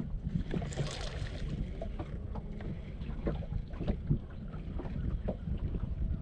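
Wind rumbling on the microphone over open water, with scattered light knocks and splashes; the sharpest knock comes about four seconds in.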